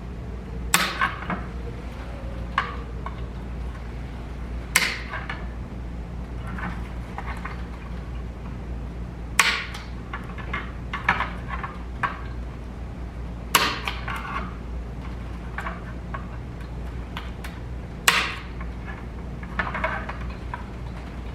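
Cutters snipping off the protruding legs of steel hot-stapler staples set in a cracked plastic part: about six sharp metallic snaps a few seconds apart, with lighter clicks between.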